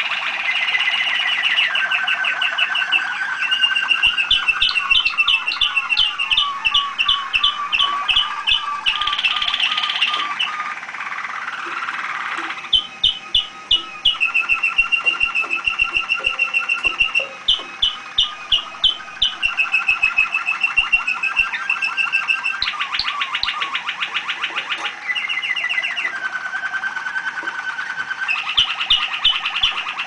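Caged domestic canary singing a continuous trilled song: rapid rolls of repeated notes, each held at one pitch for a second or two before switching to a higher or lower roll.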